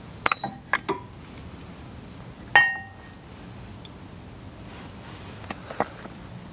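Metal brake parts clicking as the Brembo brake caliper assembly is worked off the disc rotor. About two and a half seconds in comes one loud ringing metallic clink, followed by a few faint clicks near the end.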